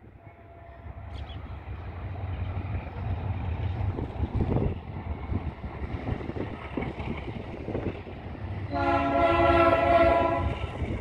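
Diesel locomotive of an NCA freight train approaching, its engine rumble growing louder. Near the end it sounds one horn blast lasting about two seconds.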